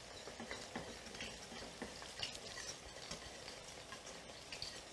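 Zucchini slices frying in a pan of oil, a faint steady sizzle, with the light scrape and tick of a whisk stirring béchamel sauce in a stainless steel saucepan.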